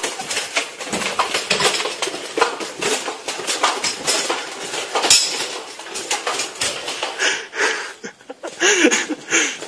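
Soldier's kit and weapon clinking and rattling with quick footsteps as he hurries along a hard corridor floor. A short wavering vocal sound comes near the end.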